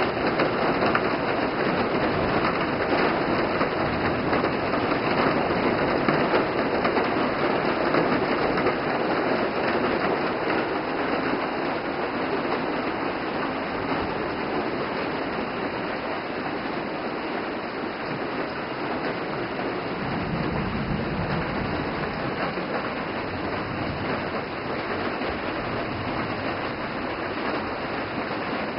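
Rain storm: a steady downpour hissing on trees, ground and roof, easing slightly about a third of the way through.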